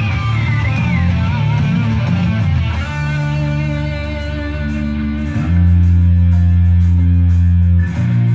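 Rock music with electric guitar and bass.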